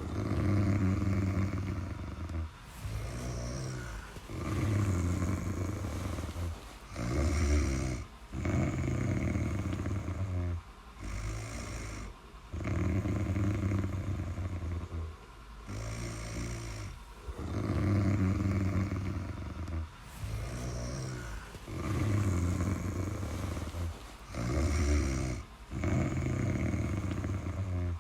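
Steady snoring: a loud low snore on each breath, about every four seconds, with a softer breath sound between snores.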